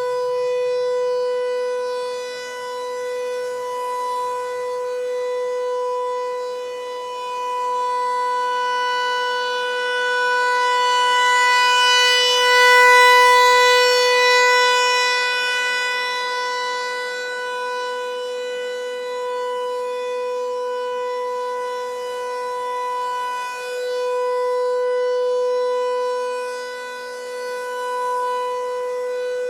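Federal Signal 508-128 rotating outdoor warning siren sounding its steady Full Alert tone. The pitch holds level while the loudness slowly swells and fades as the rotating horn sweeps past, loudest about halfway through.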